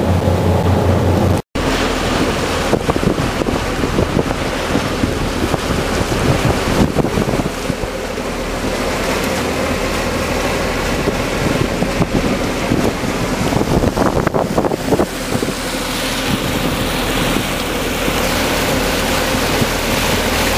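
K-13 motorboat running fast under power: steady engine noise under loud rushing water and wind on the microphone, with many short knocks as the hull meets the waves. The sound breaks off briefly about a second and a half in.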